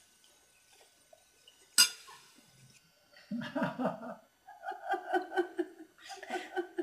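A single sharp clink of a metal spoon against a ceramic bowl about two seconds in, the loudest sound here, followed by soft laughter in short, quickly repeated pulses.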